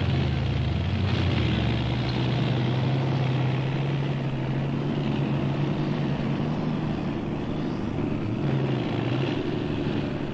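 Heavy engines of a garbage truck and a bulldozer running steadily, a low hum that shifts a little about a second in and again near the end.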